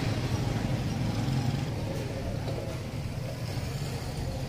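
A steady low mechanical hum under a background of noise.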